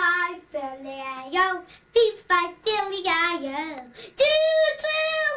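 A small child singing a series of short phrases, the pitch stepping up and down from note to note, with brief pauses for breath between lines.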